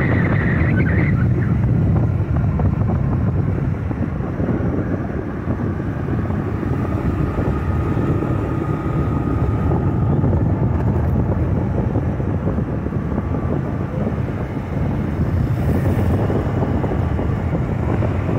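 Steady road and engine noise of a moving vehicle carrying the microphone along a paved street, with wind rumbling on the microphone.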